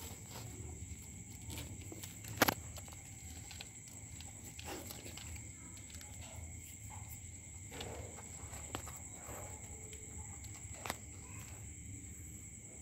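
Night insects trilling steadily at a high pitch, with a few faint ticks and one sharp click about two and a half seconds in.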